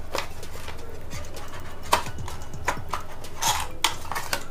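Cardboard packaging handled by hand as a paperboard inner tray is opened: a few sharp taps and clicks, the loudest about two seconds in, with a brief rustle of paperboard a little past halfway.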